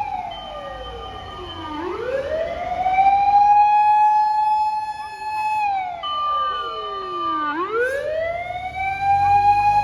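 Fire engine siren wailing on an emergency run. Twice its pitch slides steadily down, then winds quickly back up to a high steady note, with a low vehicle rumble underneath.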